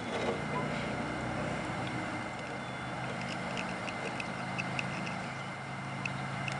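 An engine running steadily with a low, even hum, and a few faint small clicks over it.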